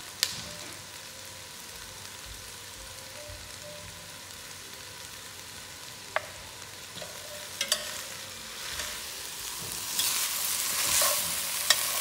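Ground turkey and vegetables sizzling in an enamelled Dutch oven, a steady hiss with a few sharp clicks. From about ten seconds in, a spoon stirring through the pot makes the sizzle louder, with scrapes and clinks.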